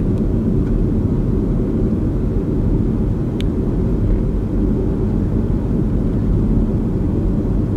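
Steady low road-and-engine rumble of a car driving, heard from inside the cabin.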